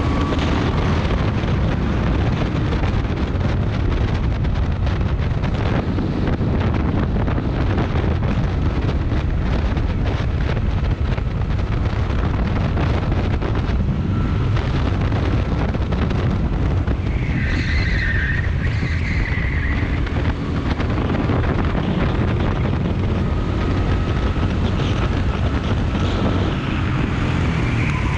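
Rental go-kart engine running at speed on track, heard from onboard with wind rushing over the microphone. A brief high squeal comes about two-thirds of the way through.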